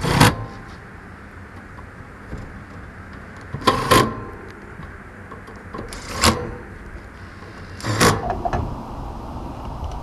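Cordless drill-driver driving sheet-metal screws into an air conditioner's fan grille and top panel: four short whirring runs of about half a second each, near the start, a little before halfway, past halfway and about eight seconds in.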